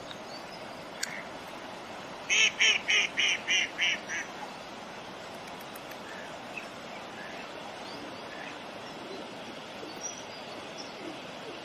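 Waterfowl calling: a quick run of about seven loud, nasal calls, about four a second, each a little fainter than the one before.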